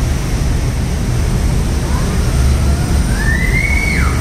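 Steady low rumble of a river tour boat under way on the Seine. In the second half a faint high-pitched call rises, holds and then falls away.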